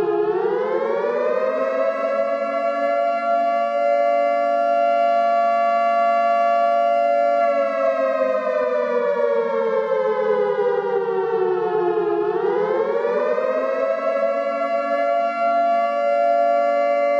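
Civil defense siren wailing, with two pitches sounding together. Its pitch rises over the first two seconds and holds. From about seven seconds in it slides slowly down, then rises again around twelve seconds in and holds steady.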